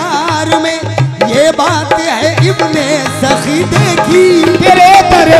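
Qawwali performance: a male lead voice sings long, wavering, ornamented notes over harmonium, with a hand drum beating a steady rhythm underneath.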